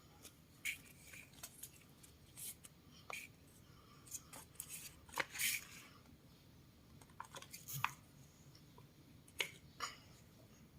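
Sheet of paper being handled, with scattered faint crinkles and sharp clicks, the largest cluster about five seconds in.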